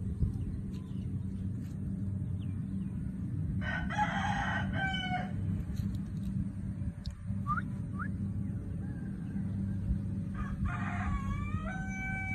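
A rooster crowing twice, about four seconds in and again near the end, each crow a rough start followed by a held, stepped call, over a steady low hum.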